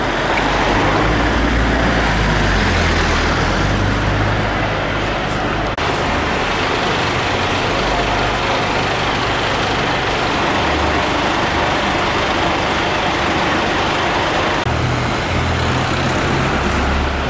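Diesel engines of Scania fire engines running, a steady low rumble amid street traffic noise, with no siren sounding. The rumble changes abruptly about six seconds in and again near the end.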